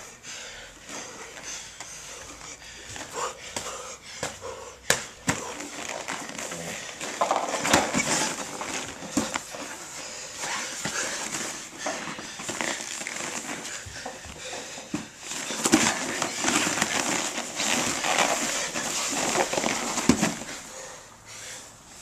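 Two men grappling on vinyl mats: bodies and gloves scuffing and slapping against the mat, with hard breathing and a few sharp knocks.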